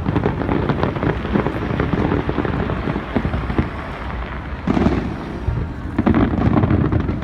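Fireworks display: a dense, continuous crackle of many small pops, with heavier booms about two-thirds of the way through.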